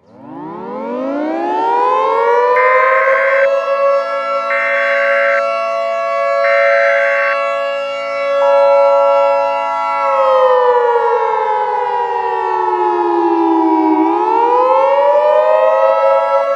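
Outdoor civil-defense warning siren winding up from silence to a steady wail, then winding down about ten seconds in and winding back up near the end. Three short hissing bursts come a few seconds in.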